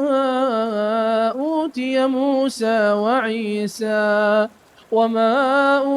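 A man's voice reciting the Quran in melodic tajweed style, drawing out long held vowels with ornamented, wavering pitch. A brief pause for breath comes about four and a half seconds in before the chant resumes.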